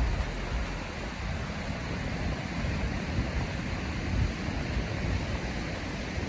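Wind buffeting the microphone: a steady rushing noise with an uneven, gusty low rumble.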